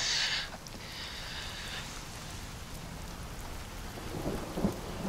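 Steady rain falling, an even hiss with a low rumble underneath, and a short breathy hiss in the first half second.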